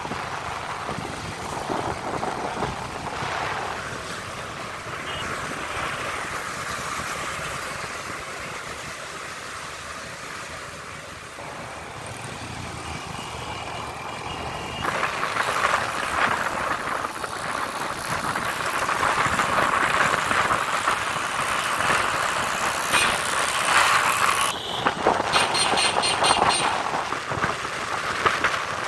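Road noise heard from a moving motorcycle in city traffic: wind rushing over the microphone and the engines of nearby vehicles such as auto-rickshaws. It grows louder and gustier about halfway through.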